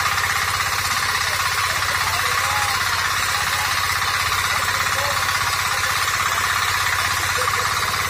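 Agrimart 9 HP single-cylinder diesel engine on a power tiller running steadily under load with a rapid, even chugging, as it drags a harrow blade and cage wheels through the soil.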